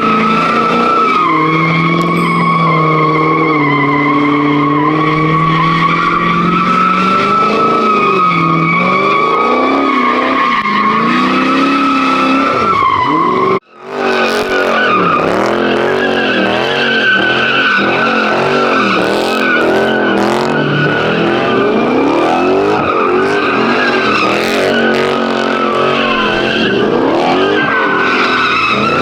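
Muscle car doing a burnout, its tires squealing steadily while the engine revs up and down. After a brief break about halfway, the revs rise and fall in quick waves under the continuing squeal.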